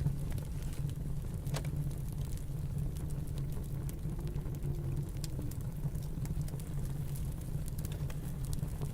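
Wood fire crackling in a fireplace: scattered sharp pops and snaps over a steady low rumble of snowstorm wind.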